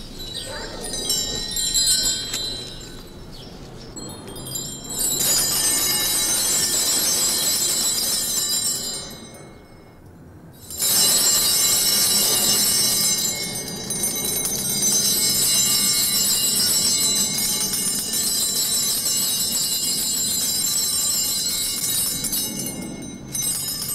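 Small altar bells shaken in long ringing bursts, breaking off for about a second near ten seconds in: the bells rung at the sacramental blessing with the monstrance.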